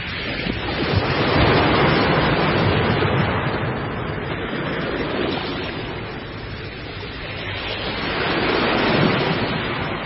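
Ocean surf: heavy waves breaking and churning. The rush swells to its loudest about a second in and again near the end.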